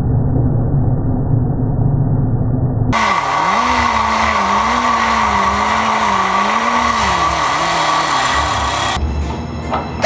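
Cut-off wheel grinding through sheet steel. At first it is a muffled, low rumble; about three seconds in it turns bright, with a whine that wavers in pitch as the wheel bites, and it falls off near the end.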